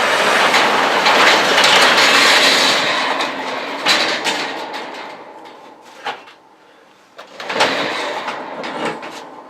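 Bobcat 610 skid steer's four-cylinder gas engine being cranked by its starter without catching, in two attempts: a long crank that fades out over about five seconds, then a shorter one about seven seconds in. The engine turns over but won't fire without choke.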